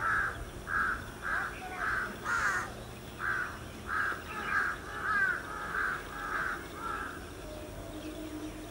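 A crow cawing over and over in a steady series, about one caw every half second or so, stopping about seven seconds in.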